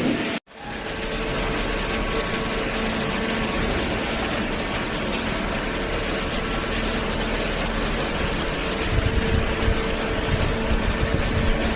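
Small hydraulic cardboard baler's power pack running: the electric motor and hydraulic pump make a steady mechanical hum with a faint held tone. The sound drops out for a split second about half a second in.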